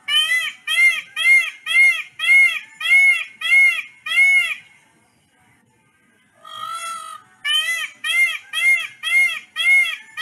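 Indian peafowl (peacock) calling: a rapid run of about nine short, arched calls at about two a second. After a pause of about two seconds, a longer drawn note about two-thirds of the way in leads into another run of the same calls.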